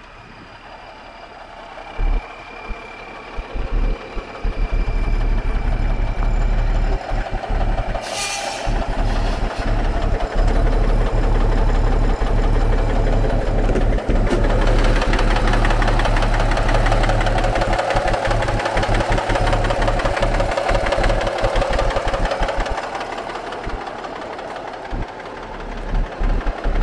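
1988 International dump truck's inline-six Cummins diesel idling steadily. It gets louder about five seconds in and stays loud, with a brief hiss about eight seconds in.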